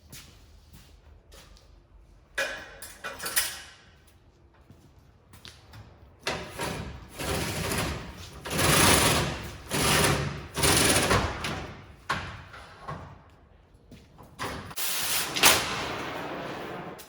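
Oxy-acetylene cutting torch cutting through a steel header sickle knife, a harsh hiss that comes in repeated bursts of a second or two each and stops suddenly near the end.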